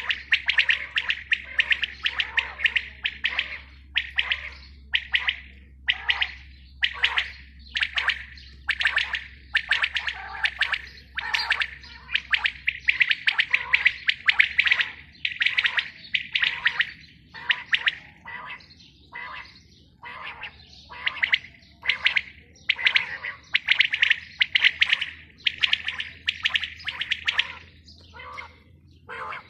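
Caged female quails calling, a dense run of short, rapid notes coming in clusters about once a second, with several birds overlapping.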